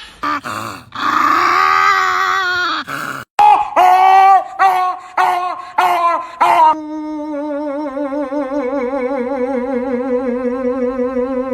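A dog making strange drawn-out groaning, yowling vocalizations: a long moan, then a string of about seven short yowls that each rise and fall. About seven seconds in, a long held tone with a wavering quality takes over, sinking slightly in pitch.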